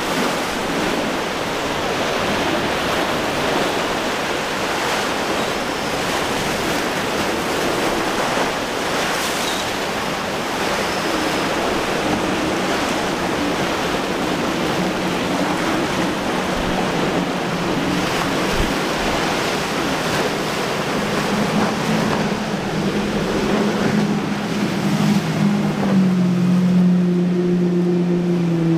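Steady rush of surf and wind. About two-thirds of the way in, a boat engine's low drone comes in and grows louder toward the end.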